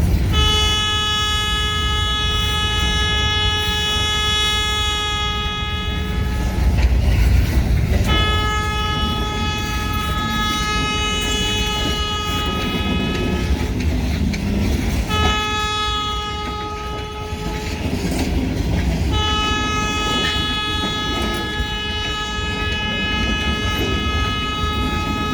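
Multi-chime air horn of the ELS 503 SD40-2 freight locomotive sounding the grade-crossing signal: two long blasts, a short one, then a long one that is still sounding at the end. A chord of several high notes, deafening, over the low rumble of the passing train.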